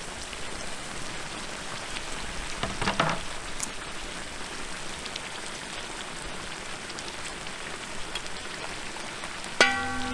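Lamb and onions in a kazan bubbling and sizzling steadily as they stew, with a few small clicks about three seconds in. Near the end a clear ringing tone starts suddenly.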